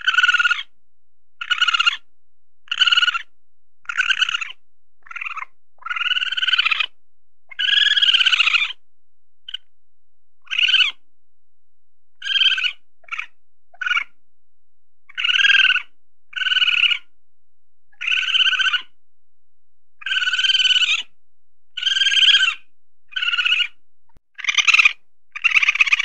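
Weasel calling over and over: short high-pitched cries of under a second each, some longer and some clipped, coming irregularly about once a second.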